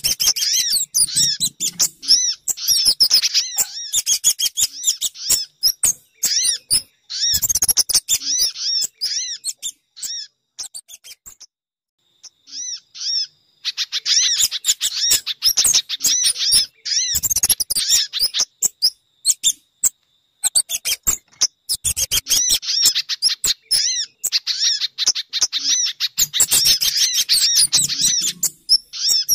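Bird-lure recording of sogon, spiderhunter and kemade calls: rapid trains of short, high chirps in long bouts, with a brief pause about halfway through.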